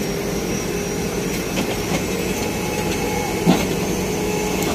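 Crane engine running steadily while the girder is lowered into place, with a few scattered knocks and a sharper knock about three and a half seconds in.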